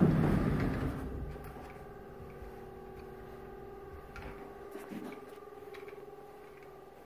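A loud brushing rumble as a closet door is handled close to the microphone, dying away within about a second, followed by a steady faint hum with a couple of light clicks.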